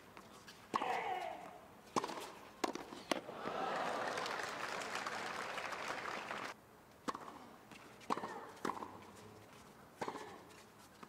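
Tennis ball struck back and forth in a hard-court doubles rally, with shoes squeaking. About three seconds in the crowd applauds the won point for about three seconds, and the applause stops abruptly. A few single ball hits or bounces follow.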